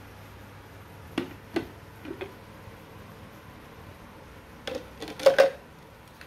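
Hard plastic parts of a baby-food steamer blender (the clear jug, its lid and the steaming basket) knocking and clicking together as they are handled. There are a few light knocks in the first couple of seconds, then a louder cluster of clatters about five seconds in.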